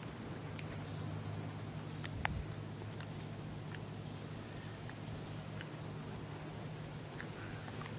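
Outdoor ambience in steady rain: an even hiss of falling rain with a low steady hum underneath, and a short high chirp repeating a little more than once a second.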